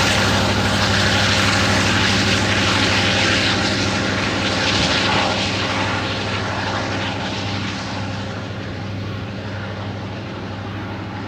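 The rear distributed-power EMD SD70ACe diesel locomotives of an empty coal train moving away, their engines giving a steady low drone over the rolling noise of the train. The sound fades gradually as they recede.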